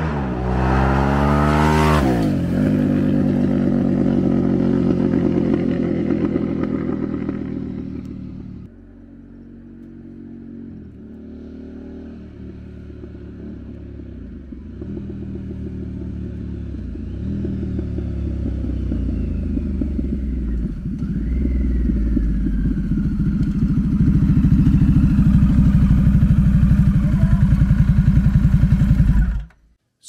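Harley-Davidson Pan America's Revolution Max V-twin, breathing through a Toce slip-on race pipe with no muffler baffle box, passing at speed. Its pitch drops sharply as it goes by, about two seconds in. After a break, the bike is heard accelerating through the gears: the pitch climbs and drops back at each of three shifts, and the sound grows louder as it approaches, so loud that the rider calls it obnoxiously loud.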